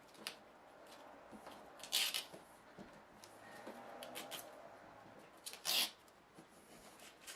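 Faint handling noises: a few short rustles and scrapes, the loudest about two seconds in and just before six seconds.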